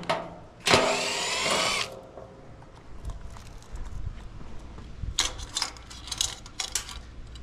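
Milwaukee M12 cordless impact driver run for about a second, its pitch rising as it spins up, backing a screw out of the condenser's cabinet. A handful of short sharp clatters follow near the end.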